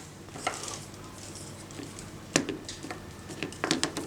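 Scattered light clicks and taps of small hard plastic toy game pieces being handled, a single click about half a second in, another about 2.4 s in, and a quick run of several clicks near the end.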